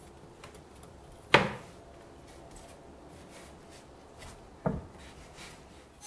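Two knocks against wood, about three seconds apart, the first the louder, with faint rustling and light taps between: a person moving about among wooden attic rafters.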